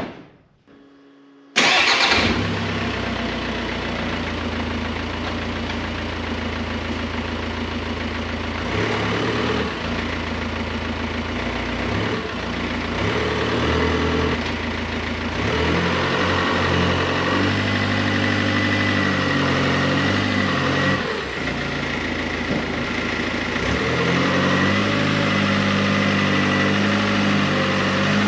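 VW Crafter diesel engine starting about a second and a half in, then running loud with no exhaust fitted, its note rising and falling in the second half as the van is backed up. It is being run after a timing belt replacement.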